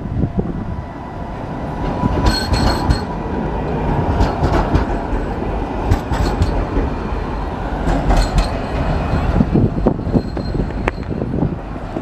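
Adtranz Variotram light rail tram passing close by on street track, its wheels and running gear giving a continuous rumble with a few sharp clicks. Brief high-pitched wheel squeals come about two seconds in and again about eight seconds in.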